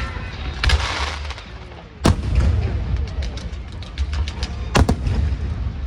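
Aerial fireworks bursting over music: two sharp bangs, one about two seconds in and one near the end, with crackling bursts in between, while bass-heavy music plays underneath.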